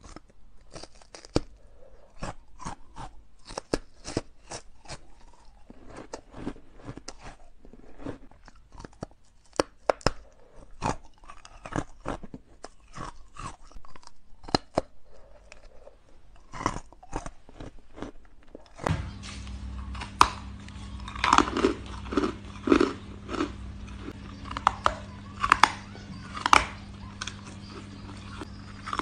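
Close-up crunching and chewing of frozen white carbonate ice blocks, many sharp crunches in quick runs. About 19 seconds in the sound changes to a steady low hum under louder crunching of soft, frosty ice.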